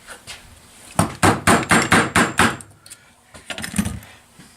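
Hammer striking a screwdriver used as a drift: a quick run of about eight sharp metallic blows, then a few lighter taps. The blows are driving a stubborn old seal out of its bore on a 1963 Evinrude Lark 40 hp outboard.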